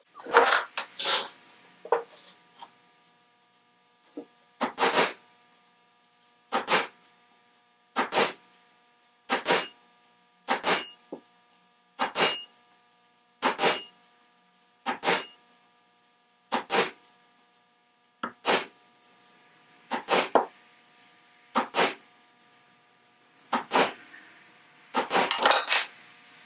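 A soft-faced mallet tapping the dented metal tail cup of a carriage lamp over an anvil, to knock out a caved-in dent. The sharp taps come about one every one and a half seconds, some in quick pairs, with a close cluster near the start and another near the end.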